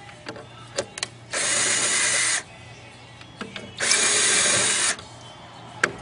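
Power drill run in two bursts of about a second each, driving out fasteners to take a refrigerator apart for scrap. A few short clicks and knocks of metal parts come between the bursts.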